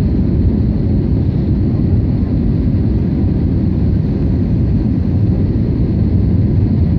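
Jet airliner cabin noise on approach to landing: a steady low rumble of engines and airflow, heard from inside the cabin at a window seat.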